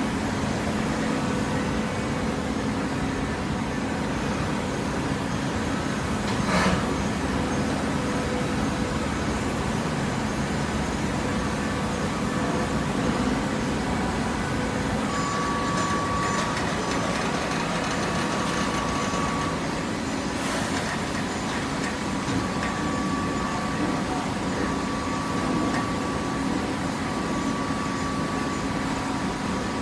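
Hydraulic cardboard baler running: a steady machine hum with a thin whine that comes and goes, and two sharp clicks, about 7 and 20 seconds in.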